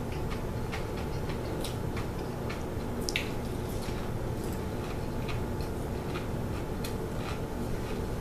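A person chewing a hard-boiled egg with its shell on: irregular small crunches and clicks of the shell being bitten, over a steady low background hum.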